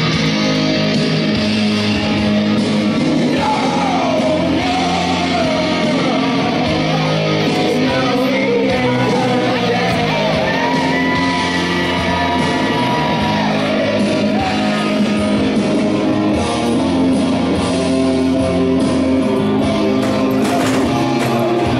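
Rock song with a sung vocal and guitar, playing loudly and steadily without a break.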